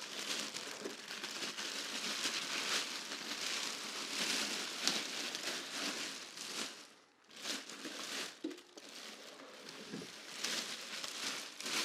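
Plastic packaging crinkling and rustling as it is handled and pulled off a new table saw, with a short pause about seven seconds in.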